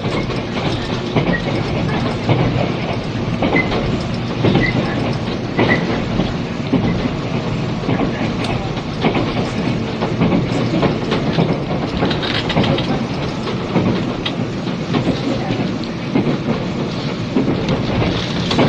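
Interior running sound of a 485-series limited express electric train car at speed: a steady rumble with wheels clicking over rail joints. It is an old cassette tape recording, with tape hiss.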